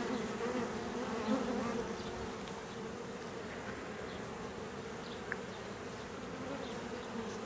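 Many honey bees buzzing in a steady, low hum, with a brief click a little after the middle.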